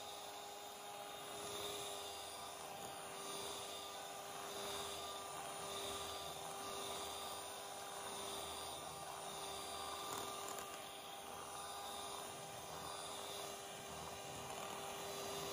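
Electric hand mixer running steadily, its motor whining on one held pitch while its two beaters whip a thick cream mixture in a bowl. A hiss rises and falls softly about every one and a half seconds.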